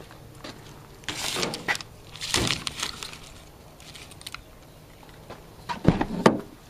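Rustling and scraping noise twice in the first half, then two sharp clacks a fraction of a second apart near the end as the pickup truck's door is opened.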